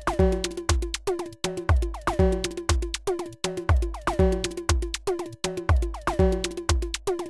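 Sonic Charge Microtonic drum synthesizer playing a looping electronic drum pattern. Deep kick thumps run under several sharp hits a second, with short pitched percussion tones that drop quickly in pitch.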